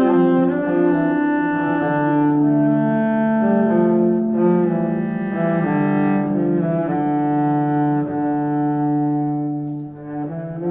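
Background music: slow bowed strings, cello and double bass, playing sustained notes in several parts.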